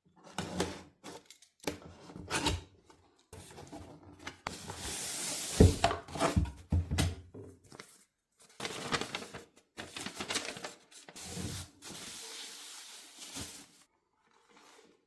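Headset packaging being handled and opened: cardboard and plastic rubbing and crinkling, with irregular clicks and knocks. It falls almost silent near the end.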